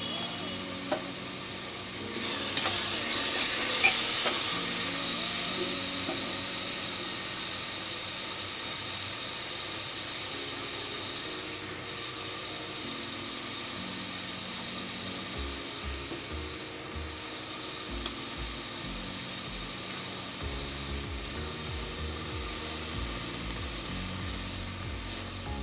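Onion and ginger-garlic paste with ground spices frying in hot oil in an aluminium pressure cooker: a steady sizzle that swells about two seconds in, then settles. Soft background music plays underneath.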